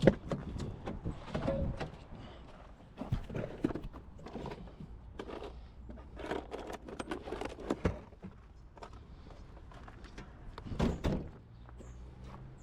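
Handling noise: irregular clicks, knocks and rustles as test leads with alligator clips are run to ground and clipped on, with a louder clatter about eleven seconds in.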